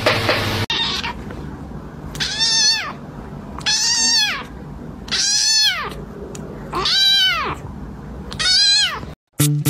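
Orange kitten meowing five times, about a second and a half apart, each short call rising then falling in pitch.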